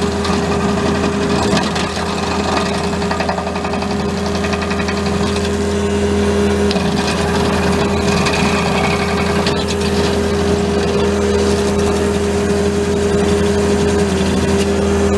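Diesel engine of a compact track loader running at a steady speed: a constant, even drone with no pauses. The pitch dips slightly near the end.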